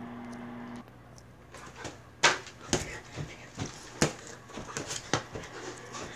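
A steady low hum cuts off just under a second in. Irregular sharp knocks and thumps follow, some close together, the loudest about two seconds in.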